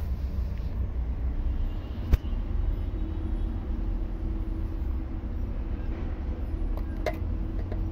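Steady low outdoor background rumble, with one sharp click about two seconds in and a faint steady hum from about three seconds on.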